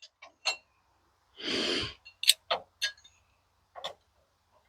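A few sharp, scattered clicks and knocks of metal parts on a sawmill being handled while a log is lined up, with a short breathy exhale about a second and a half in.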